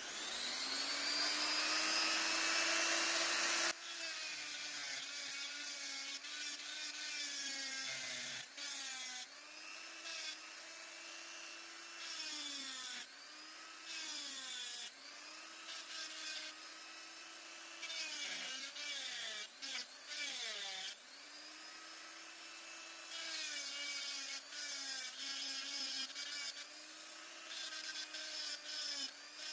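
Electric die grinder spinning up with a rising whine, then grinding, its pitch sagging again and again as it bites into the work.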